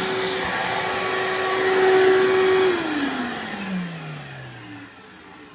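Vacuum cleaner running with a steady whine, supplying the suction that drives a Lego two-cylinder vacuum engine. Nearly three seconds in, the whine falls steadily in pitch and fades as the motor winds down after being switched off.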